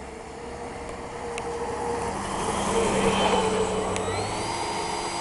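Model Griffon TDX2000 hovercraft's lift fan and twin ducted propellers whirring as they spin up, growing steadily louder, with a whine that rises in pitch about four seconds in.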